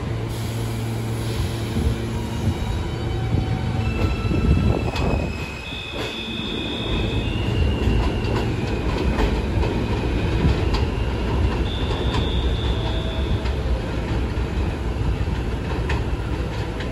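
R160 subway train pulling out and running away over elevated steel track, with a steady low rumble and clatter over the rails. High, steady wheel squeals come and go, around the third to eighth second and again past the middle.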